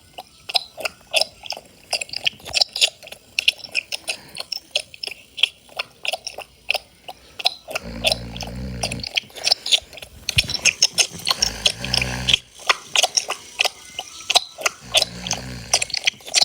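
Loud wet chewing, a quick run of smacking clicks about three a second, with three short low snores in the second half.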